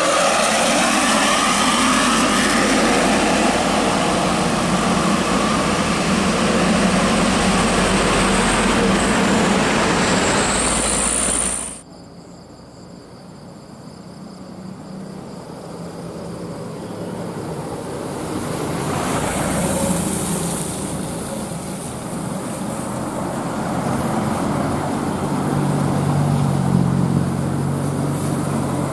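Road traffic passing close, a loud continuous rush of engine and tyre noise with a brief rising high whine, that cuts off abruptly about twelve seconds in. After that, quieter traffic noise builds slowly as more vehicles approach.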